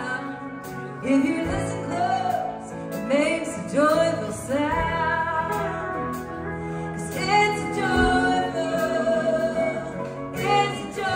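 Live band music: a slow country song, with a sustained melody over steady bass and a deep low hit about every three seconds.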